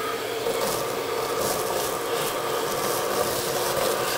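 Vacuum cleaner running steadily, its motor giving a held hum under a rushing noise as it sucks debris off the top of an engine.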